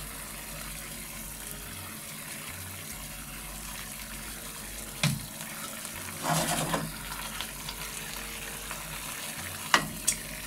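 Seafood broth with clams and vegetables simmering uncovered in a cast-iron pan over a gas flame: a steady bubbling sizzle. A sharp click comes about five seconds in, a brief clatter a second or so later, and two more sharp clicks near the end.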